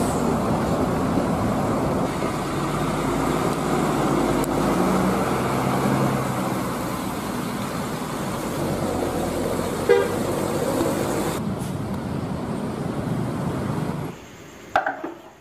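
Large diesel coaches moving in traffic, engines running over road noise with short horn toots. The sound drops away suddenly about fourteen seconds in.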